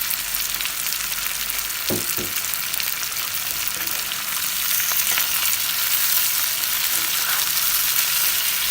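Sliced onion and capsicum sizzling and crackling in hot oil as they are sautéed and stirred in the pan, with two quick knocks about two seconds in.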